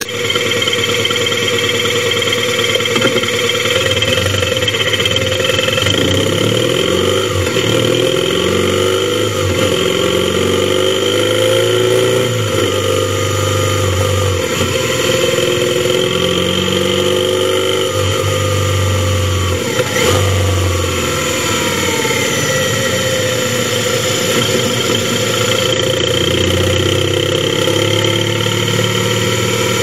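Motorcycle engine under way: it pulls away and accelerates through the gears, its pitch rising and dropping again and again. A brief knock comes about two-thirds of the way through. Picked up by a helmet-mounted action camera.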